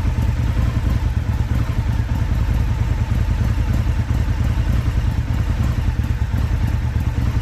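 2024 Indian Scout V-twin engine idling with a fast, uneven pulse and occasional dips, the misfire the owner recorded it to show.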